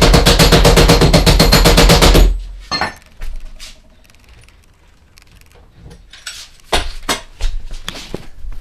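A loud, fast, rapid-fire beat of about a dozen sharp pulses a second from background music, which cuts off abruptly about two seconds in. After it come scattered light knocks and clicks.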